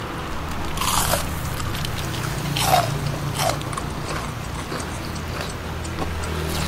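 A person eating curry noodle soup: slurping and chewing noodles, with a few short noisy slurps about one, two and a half, and three and a half seconds in, the middle one loudest.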